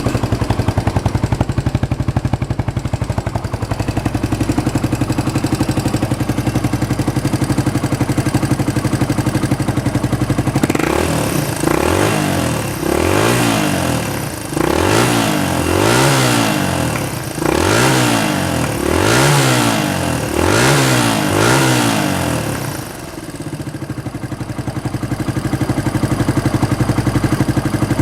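Suzuki VanVan 200's air-cooled single-cylinder four-stroke engine, breathing through an aftermarket muffler, idling steadily. About ten seconds in it is revved in a string of about seven quick throttle blips, each rising and falling, and then it settles back to idle near the end.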